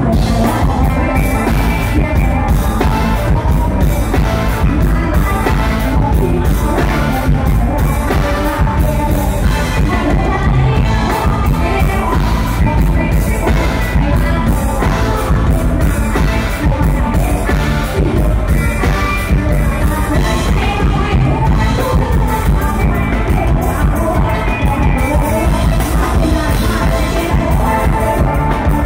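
Live luk thung band music with a singer, over a steady drum beat and heavy bass.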